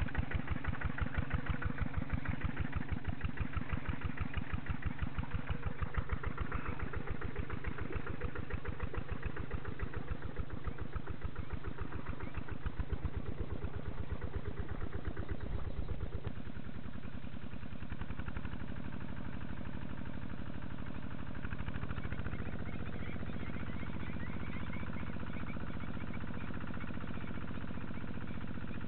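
Kubota walking tractor's single-cylinder diesel engine running with a steady, even putt-putt beat, working in a flooded rice field. It grows a little quieter and steadier after about sixteen seconds.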